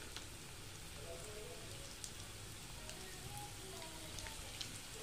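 Hot oil in a kadhai sizzling faintly and steadily, with fine crackling, around cornflake-coated chicken rolls deep-frying.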